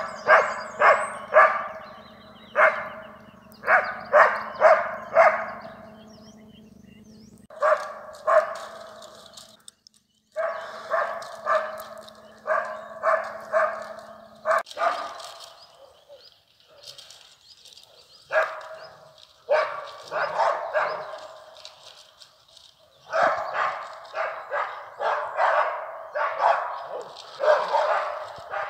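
Dogs barking in quick bursts of several barks a second, with short pauses between bursts, at a bear cub up a tree. A low steady hum runs under the barking and stops about halfway.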